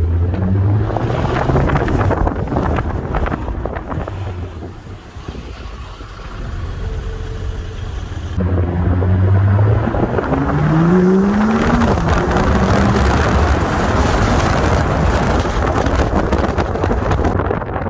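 BMW M2's N55 turbocharged straight-six engine driving the car along, its pitch rising as it accelerates about ten seconds in. Wind buffets the microphone held outside the side window, along with tyre and road noise.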